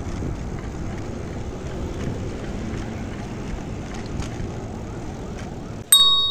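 Steady rumble of road and wind noise while riding a bicycle along city streets, then near the end a sudden metallic bell-like ding that rings on.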